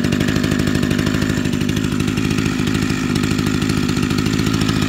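Echo HC-1500 hedge trimmer's small two-stroke engine idling steadily, its idle speed being turned up slightly at the carburetor to about 3,100 rpm: the idle was a little low and is being brought to the roughly 3,000 rpm spec.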